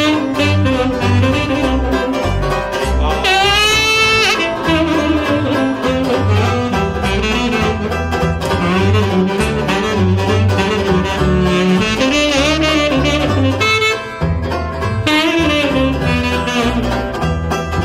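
Tenor saxophone taking an instrumental solo, with a note bent upward about three seconds in, over a steady walking upright double bass and strummed banjo in a trad-jazz beat.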